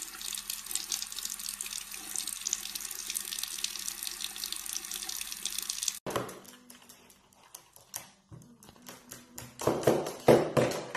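Water running steadily from a bathroom sink faucet, stopping abruptly about six seconds in. Scattered light clicks and taps follow, with a few louder short sounds near the end.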